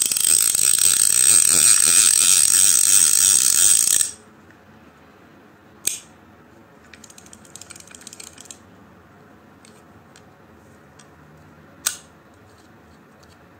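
Penn Senator fishing reel turning with its ratchet clicking rapidly and loudly for about four seconds, stopping suddenly. Then a sharp click, a short run of faint light clicks, and another sharp click near the end.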